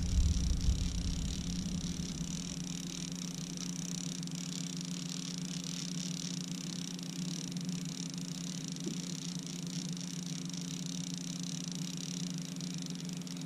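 A small boat motor hums steadily at an even pitch, with a faint hiss over it.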